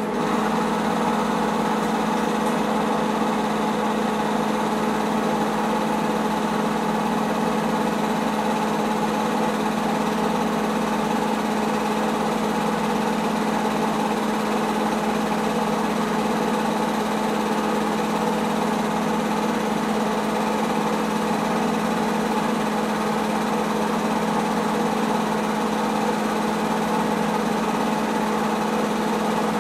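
Home-movie film projector running with a steady motor hum and whir.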